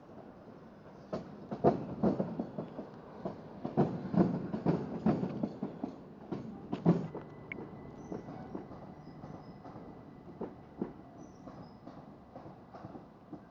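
A multiple-unit passenger train passing close below, its wheels clacking over rail joints in a quick run of sharp beats. The clacks are loudest in the first half and fade as it draws away, while a faint thin high tone appears about halfway through.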